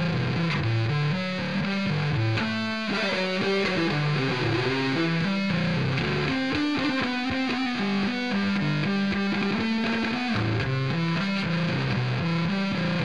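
Unaccompanied electric bass guitar solo played through distortion, a melodic line of single notes with a quick flurry of notes about two and a half seconds in and long held notes around the middle.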